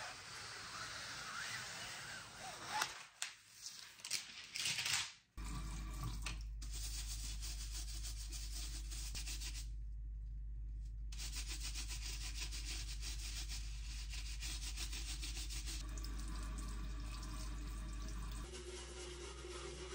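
Plastic protective film crackling as it is peeled off an air fryer lid, then a few short sharp knocks and rustles. From about five seconds in, a dish brush scrubs over an air fryer's nonstick crisper tray under a running kitchen tap: steady rubbing over the sound of running water.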